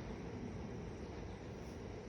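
Faint, steady background noise with no distinct events.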